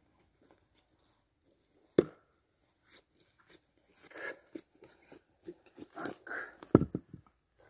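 Footsteps crunching and rustling through dry twigs and forest litter, with a sharp knock about two seconds in and a heavy wooden thud near the end.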